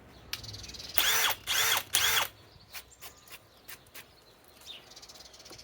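Harbor Freight Hercules cordless drill driver with a 1 1/2-inch spade bit, run in three short trigger pulls, the motor whining up to speed and winding down each time.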